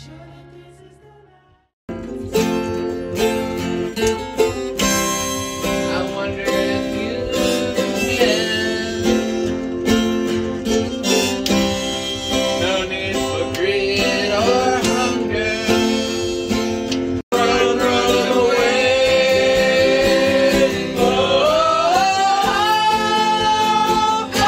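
Live acoustic guitar playing with a voice singing along, in an informal jam session. A quieter piece fades out over the first two seconds before the guitar and singing start, and the sound drops out briefly about 17 seconds in.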